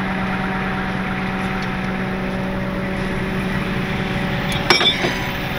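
Heavy 4x4 wrecker running steadily at the rear, a low hum with a steady higher whine over it from its hydraulics, and one sharp metal clink about three-quarters of the way through.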